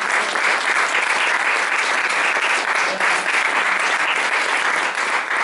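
Church congregation applauding.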